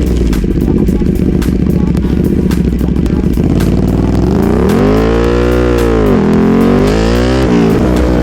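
Sport motorcycle engine running, revved up and back down about five seconds in, and again briefly near the end.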